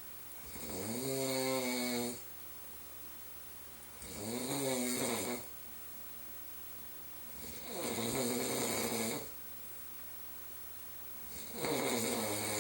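A man snoring in his sleep: four snores, one every three and a half to four seconds, each about a second and a half long with a pitch that bends up and down, and quiet breathing gaps between.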